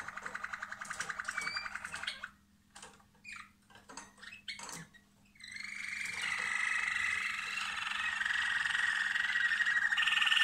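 Canary song: a fast trill of rapidly repeated notes for about two seconds, a pause broken by a few short notes, then from about halfway a long unbroken rolling trill that runs on.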